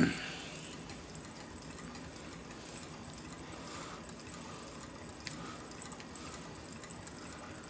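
Hand-cranked pressurized popcorn popper being turned slowly over a burner, with faint metallic rattling and scraping from the rotating iron drum and its crank, and a few light clicks near the end. It opens on the fading tail of a sharp metal knock.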